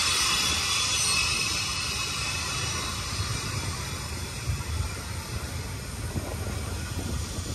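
Freight train passing: a steady rumble of wheels on rail, with a high hiss that fades over the first few seconds.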